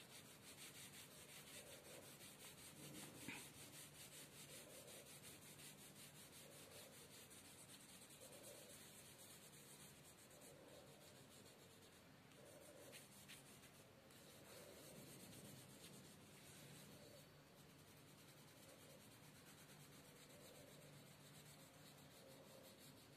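Faint rubbing and scratching of a yellow colour being shaded back and forth across the paper of a drawing book.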